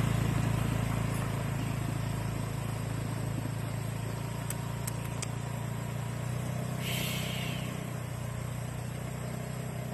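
Small motorcycle engine running steadily as it pulls away over gravel, slowly fading into the distance.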